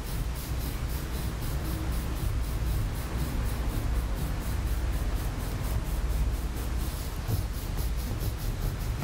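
Stainless steel massage plate scraping along the skin of the shin and calf in quick repeated strokes, about three or four a second, over a steady low hum.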